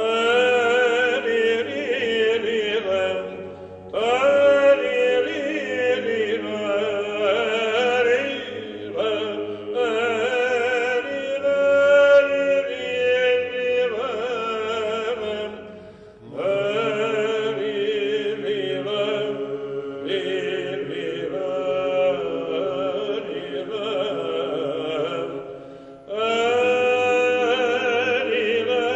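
Male choir singing Byzantine chant: a melody over a steady held drone (the ison). The singing comes in phrases that break off briefly about four, sixteen and twenty-six seconds in.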